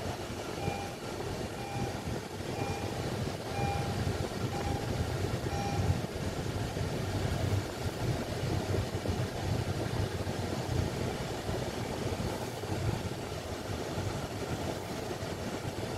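Steady road and engine noise heard inside a moving car's cabin. In the first six seconds a short electronic beep sounds six times, about once a second.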